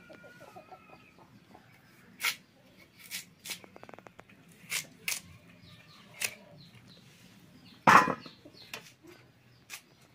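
Sharp, irregularly spaced clicks of a small hooked iron blade cutting through garlic cloves held in the fingers, about eight in all, the loudest one about eight seconds in.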